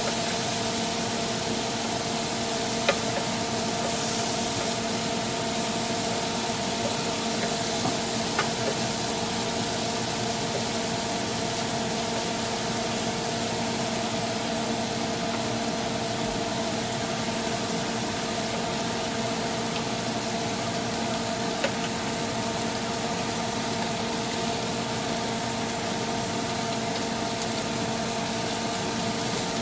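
Black tiger shrimp sizzling in garlic butter in a grill pan: a steady hiss over a constant hum, with a few light knocks of a wooden spoon against the pan.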